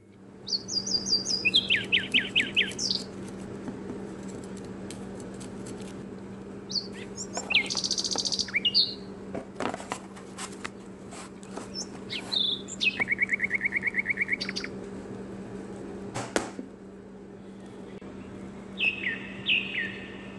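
Small birds chirping in short groups of rapid, repeated trills every few seconds, over a steady low hum. A few sharp clicks come about halfway through and again later.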